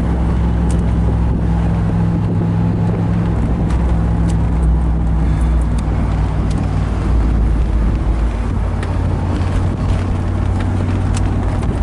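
1991 Camaro Z28's tuned-port fuel-injected V8 running steadily while the car cruises, heard from inside the cabin over tyre and road noise. Its note drops a little about halfway through.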